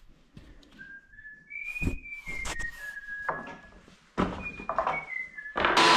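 A person whistling a tune, a string of held notes, over a few knocks from work on the trim. Near the end a loud, steady motor noise starts abruptly.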